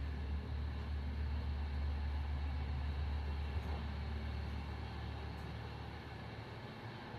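Steady low rumble and running noise inside a VR passenger train carriage, easing slightly near the end.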